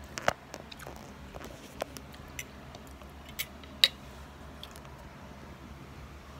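A person chewing a mouthful of food, with a few sharp clicks, the loudest near the start and just under four seconds in.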